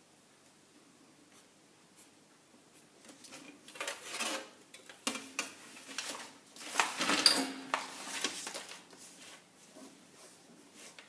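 Clear plastic French curve and pattern ruler being slid and shifted across drafting paper, with the paper rustling: a few seconds of rubbing and scraping that start after a quiet few seconds, are loudest in the middle, and die away near the end.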